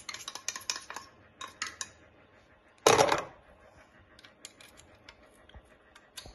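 Metal knife tapping and scraping against a small tin can as its contents are emptied, a run of light clicks and scrapes with one louder clatter about three seconds in.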